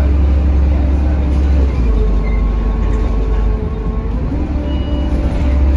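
Mercedes-Benz OH1830LE city bus heard from the passenger cabin, its OM926 six-cylinder diesel running with a low, steady rumble. About two seconds in the note shifts and a faint whine comes in, and the earlier rumble returns about four and a half seconds in.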